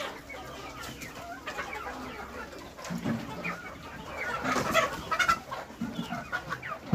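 A flock of local desi hens clucking while feeding, with many short overlapping calls that grow busiest about four to five seconds in.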